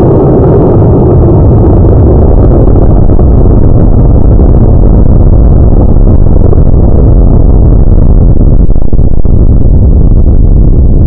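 Cesaroni I540 White Thunder rocket motor burning at liftoff: a loud, steady roar, slowed down with the slow-motion footage so that it lasts many seconds and sounds deep.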